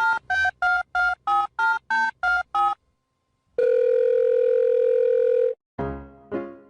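A phone number dialed on a telephone keypad: a quick, even run of about ten two-tone keypad beeps, then after a short pause a steady ringing tone for about two seconds while the call connects. Piano notes start near the end.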